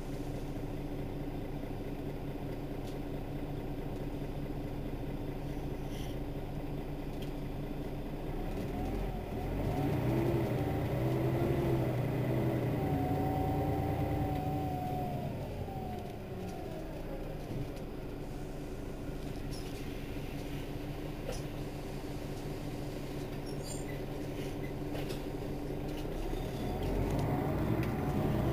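Mercedes-Benz Citaro city bus engine idling steadily at a stop. About a third of the way in, the sound grows louder for several seconds, with a whine that rises and then falls. It swells again near the end.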